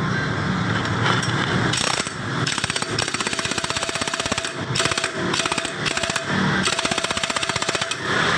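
Impact wrench hammering in rapid bursts with short pauses between them, tightening a pulley nut on a scooter's CVT.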